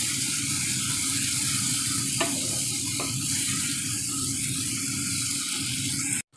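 Onion, tomato and ginger-garlic masala sizzling in hot oil in a nonstick kadai as it is stirred with a wooden spatula, with a couple of faint knocks of the spatula on the pan. The sound cuts off suddenly just before the end.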